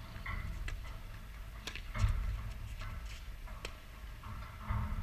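Tennis balls striking rackets and bouncing on a hard court: a few sharp, scattered ticks, over an uneven low rumble that swells about two seconds in and near the end.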